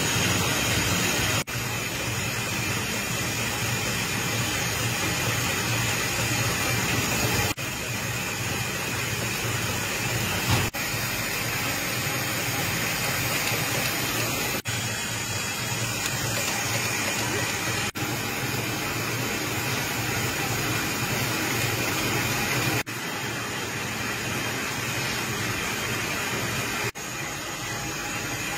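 Steady mechanical noise: a low hum under an even hiss, with a faint high whine, dipping briefly several times.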